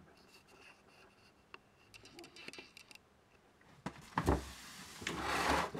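Handling noise from taking apart an electrocardiograph: faint small clicks, then a couple of sharp knocks about four seconds in, followed by a louder rustle of the plastic film and cardboard sheet over the circuit board being pressed and handled.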